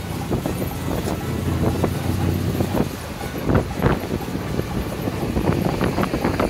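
Engine and road noise of an open convertible classic car on the move, a steady low rumble, with wind gusting across the microphone in uneven spikes.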